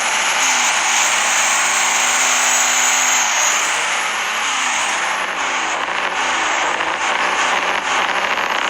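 Diesel truck engine running rough with a high whistle that rises and falls repeatedly in the second half. The owners first feared a holed or melting piston, but put the rough running down to bent and broken fuel lines starving it of diesel.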